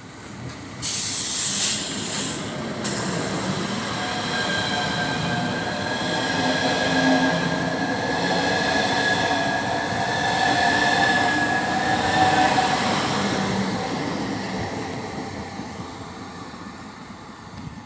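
Electric train going through the station, its rumble and steady high whine growing louder for about ten seconds and then fading, with a short hiss about a second in.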